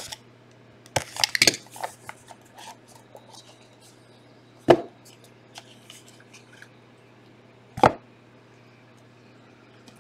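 Cardboard trading-card box being cut open with a plastic safety box cutter and handled: a cluster of clicks and crinkling about a second in, then two sharp knocks about three seconds apart as boxes are set down on the table.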